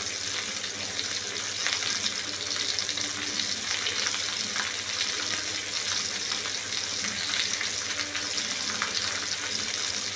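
Chicken pieces deep-frying in hot oil: a steady sizzle with scattered small crackles and pops.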